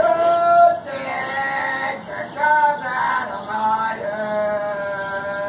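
A high-pitched voice wailing in held notes: a short held note, a few shorter ones at changing pitch, then one long steady note.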